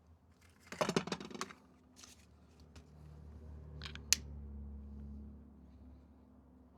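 Paper being crumpled and handled, with a quick run of crinkles about a second in and a few sharp clicks afterwards, and a low rumble that swells in the middle and fades.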